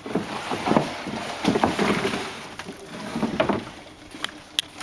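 Water sloshing and splashing around a small fishing boat in three surges, about a second and a half apart, with a couple of sharp knocks near the end.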